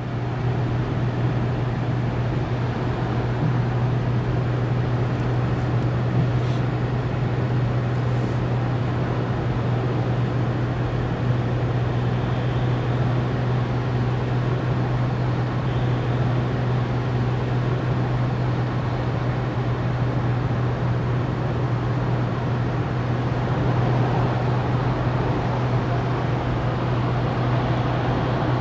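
Interior cabin noise of a Volkswagen up! with its 75 hp 1.0-litre three-cylinder petrol engine, cruising at a steady speed: a constant low engine drone under road and wind noise.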